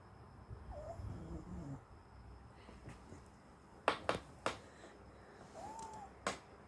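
A sleeping pet snoring, one rasping breath about half a second in. Then four sharp clicks, the loudest sounds, and a short arching squeak between the last two.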